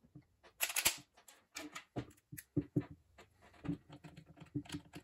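Hands handling a pistol and a small aluminum optic mount on a wooden workbench: a brief scuffing noise a little under a second in, then irregular light clicks and knocks of metal parts against the bench and the gun.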